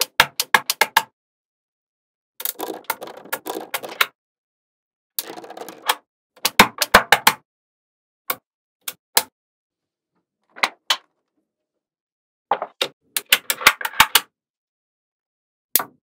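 Small magnetic balls clicking and clattering as strips and clusters of them are snapped onto a structure: bursts of rapid sharp clicks with rattling, separated by silent gaps.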